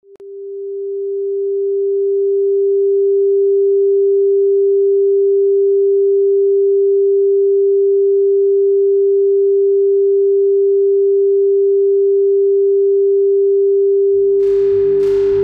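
A steady electronic sine tone, one pure low-mid pitch, swelling up over the first few seconds and then holding. Near the end a low rumble and sharp struck hits come in over it as the score begins.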